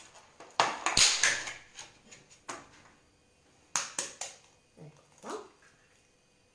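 Eggs being cracked open by hand over a plastic mixing bowl: a run of sharp taps and shell cracks, the loudest about a second in. About five seconds in there is a brief sound that rises in pitch.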